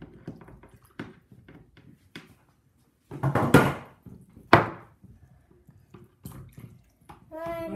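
Small taps and knocks of hands and toy pieces on a wooden table, with a louder scuffing noise about three and a half seconds in and a sharp knock about a second later.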